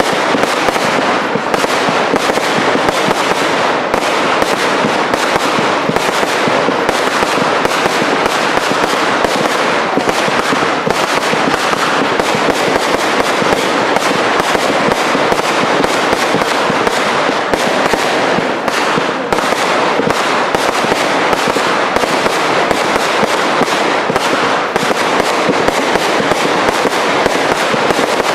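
Compound firework cakes firing a dense, continuous barrage: rapid shots and bursting shells, many reports a second at a steady loudness, picking up to full intensity at the very start.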